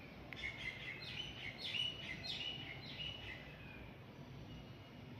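Birds chirping faintly in the background: a quick run of short, high chirps during the first three seconds or so, over a low steady hum.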